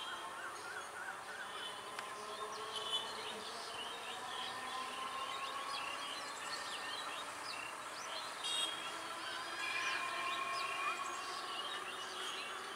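Electric multiple unit local train pulling away, its traction motors making a faint, wavering whine. Birds chirp throughout.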